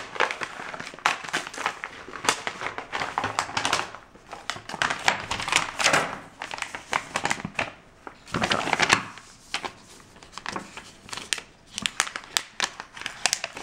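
Paper and clear plastic packaging crinkling and rustling as it is handled, with many irregular sharp crackles and a longer, louder rustle about eight seconds in.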